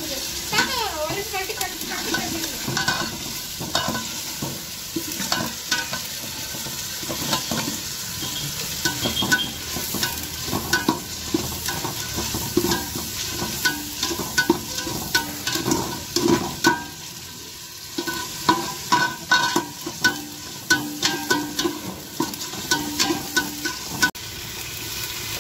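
Sliced onions and mint leaves sizzling as they fry in ghee in an aluminium pot. A steel perforated ladle stirs them, clicking and scraping against the pot again and again.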